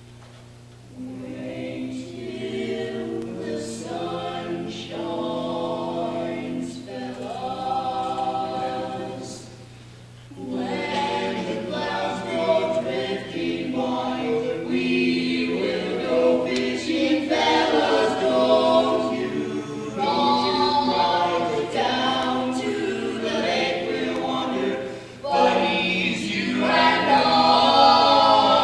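Barbershop quartet of a man and three boys singing a cappella in close four-part harmony, with bass, baritone, lead and tenor voices. The singing comes in phrases, breaking off briefly about ten seconds in and again near twenty-five seconds.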